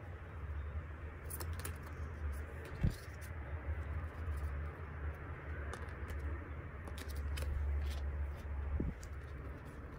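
Glossy photocards being shuffled in the hands and laid down one at a time on a wooden floor: light taps, slides and rustles of card, with a sharper knock about three seconds in and another near the end, over a low steady hum.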